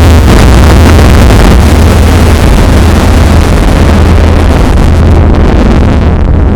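Heavily distorted explosion sound effect standing for the nuclear blast: a dense, hissing noise over a strong deep rumble, clipped at full volume. The hiss thins slightly near the end.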